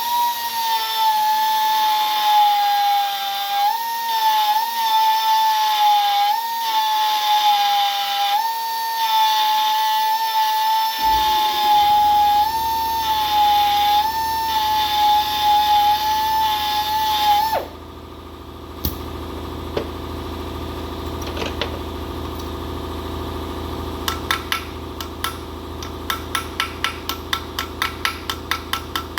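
High-speed grinder whining at a high pitch, dipping slightly now and then under load as it dresses down repair pins in a cast-iron engine block; it cuts off suddenly about two-thirds of the way through. A low steady hum starts near the middle and carries on, and near the end a quick run of light hammer taps, about three a second, begins.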